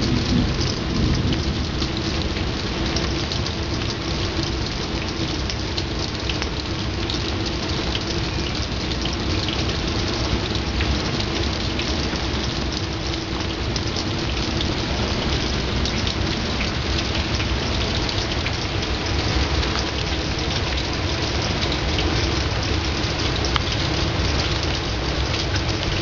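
Steady rain falling hard, an even hiss with scattered sharp hits of individual drops.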